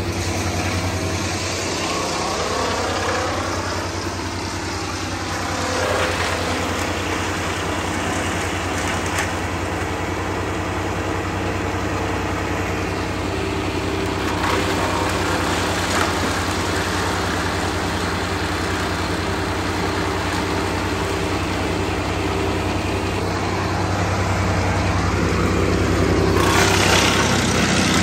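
Wood chipper running steadily under its engine, with a few sharp cracks as redwood branches are drawn in and chipped; the machine gets louder near the end as a bigger load of brush goes through.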